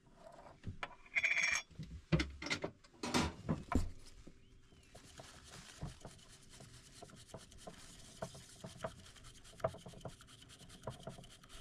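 A few clicks and knocks in the first few seconds as a small tin is opened, then a bamboo tea whisk (chasen) whisking matcha briskly in a small bowl: a fast, even scratching rhythm.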